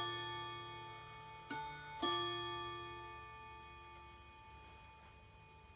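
Seiko square wall clock chiming: a note struck at the start, then a two-note ding-dong pair about a second and a half in, the tones ringing on and fading slowly.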